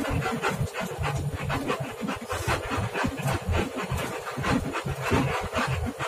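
Noise of a bus on the move: a low engine and road rumble under fast, uneven rattling and buffeting.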